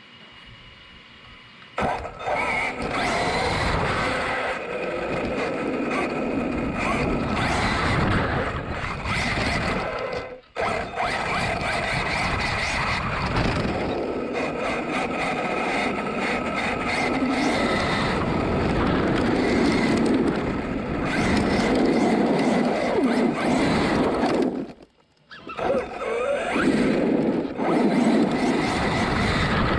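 Arrma Kraton 8S 1/5-scale RC truggy on a speed run: its brushless electric motor whining and its tires running, starting about two seconds in. The sound drops out briefly twice.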